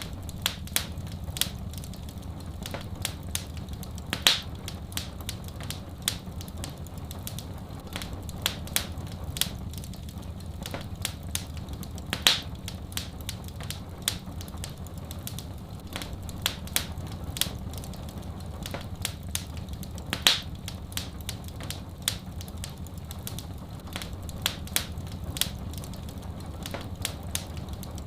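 Wood fire crackling in a fireplace: frequent irregular small crackles and snaps, with a few louder pops about a third, halfway and two thirds of the way through, over a steady low rumble.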